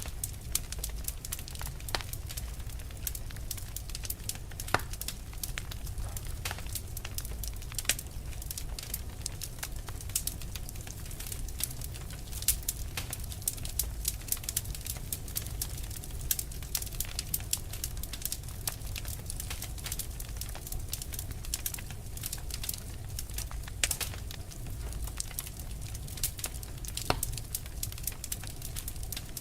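Fire burning with many irregular sharp crackles and pops over a steady low rumble.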